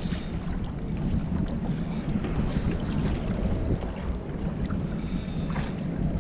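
Wind buffeting the microphone over water splashing against a kayak's hull: a steady low noise with no engine note.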